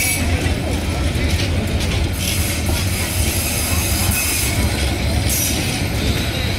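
Passenger coaches of an Indonesian-built PT INKA rake rolling past close by: a steady rumble of wheels on the rails, with a few bursts of hiss and faint wheel squeals.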